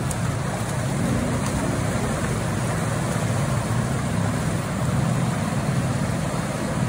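A motorcycle engine running low and steady, with the rush of a shallow, rocky river behind it.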